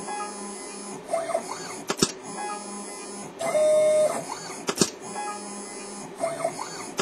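Stepper motors of a CNC solder paste dispenser making a string of short moves, each a brief whine that rises and falls in pitch, one longer and louder move near the middle, over a steady hum. A sharp click comes about every two and a half seconds, three in all.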